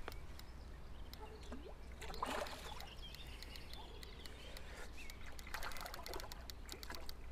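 A small hooked common carp splashing faintly at the surface as it is played in close to the bank, with a few brief splashes.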